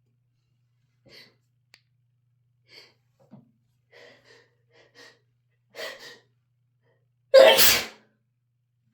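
A person's sneeze build-up: a string of short, faint catching breaths over several seconds, then one loud sneeze about seven seconds in. The sneezes are brought on by Chhinkni sneezing powder on a feather tickling the nose.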